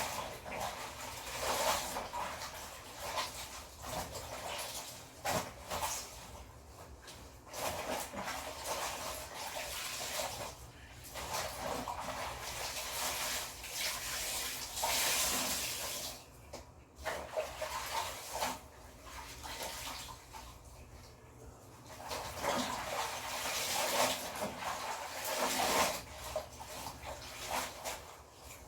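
Clothes being washed by hand in a basin of water: irregular sloshing and splashing with fabric being rubbed and wrung, in uneven swells.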